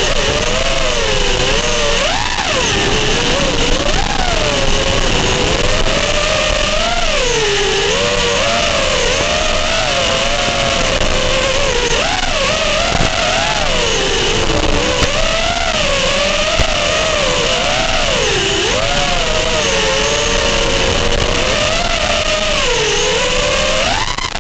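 FPV racing quadcopter's brushless motors whining, the pitch constantly swooping up and down with the throttle, under a steady hiss, as picked up by the drone's onboard video-transmitter microphone.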